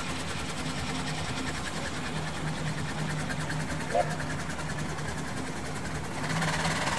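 An engine running with a fast, even mechanical beat, under background voices. There is a short chirp about four seconds in, and the noise grows louder about six seconds in.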